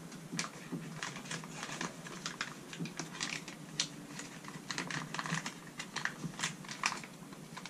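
Irregular clicks and crinkles of hands handling a plastic bait package, several close together at times.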